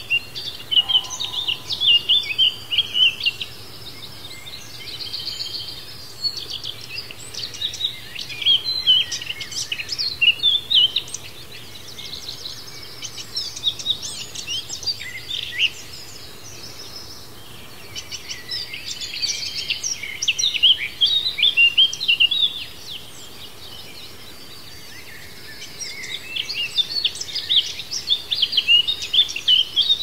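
Songbirds singing: rapid, high chirping phrases of a few seconds each, repeated with short pauses between them, over a faint steady background hum.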